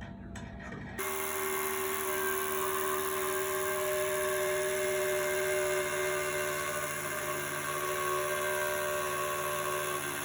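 A small electric motor, like a power tool's, starts suddenly about a second in and then whines steadily at a near-constant pitch.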